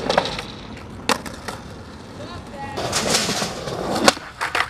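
Skateboard on pavement: wheels rolling and the board clacking down with sharp knocks, about a second in and again in a quick cluster near the end.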